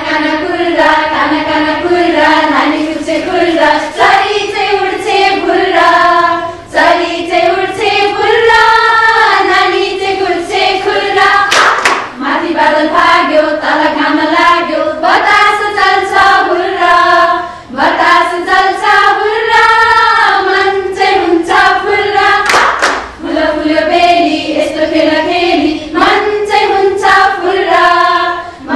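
A group of women singing a Nepali children's action rhyme together, with a few sharp hand claps.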